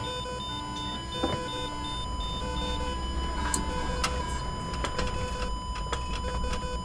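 Hospital machine ambience: a steady electronic tone under several overlapping, repeating beeps at different pitches, over a low hum. A few sharp clicks break in, about a second in and again around three and a half, four and five seconds in.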